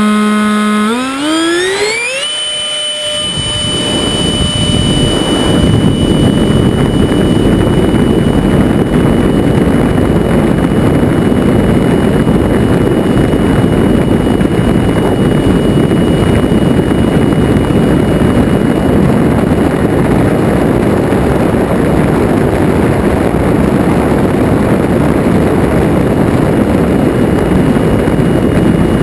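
Onboard sound of an RC F4 Phantom's 70 mm electric ducted fan, driven by a 2400kv outrunner motor, spooling up to full throttle for takeoff: a whine rises sharply about a second in and then holds as a high steady whine. Over the next few seconds a loud steady rush of air builds up and stays as the jet flies, carried on the camera's microphone on top of the airframe.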